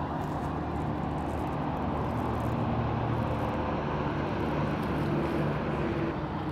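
Boat engine running steadily at low speed, an even low hum with no change in pitch.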